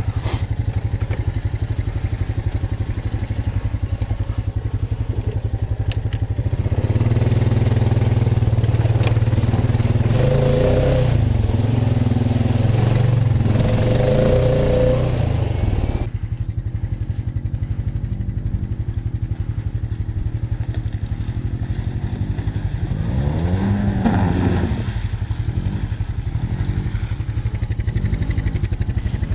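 Honda Rancher 420 ATV's single-cylinder engine running. It grows louder for several seconds in the middle with rising and falling revs, drops back suddenly, then revs up briefly near the end.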